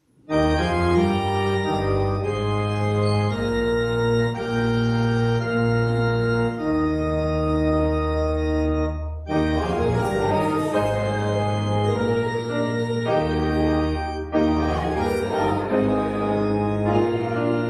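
Organ playing a hymn in sustained chords, starting suddenly after a moment of silence and changing chord every second or two, with a short break about nine seconds in.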